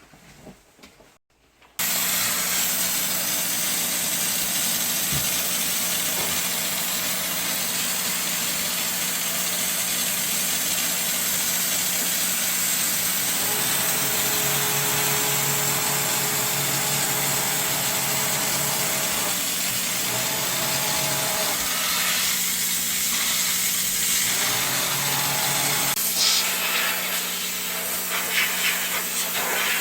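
A motor-driven cleaning machine switches on suddenly about two seconds in and runs steadily, a loud hiss over a steady hum, turning more uneven near the end.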